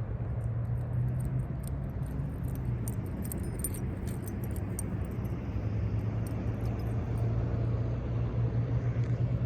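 A steady low engine hum, with light metal jingling over it.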